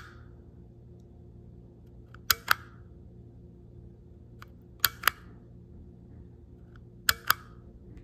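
Plastic toy camera's shutter button clicking three times, about two and a half seconds apart, each a quick double click, advancing the slideshow of pictures in its viewfinder.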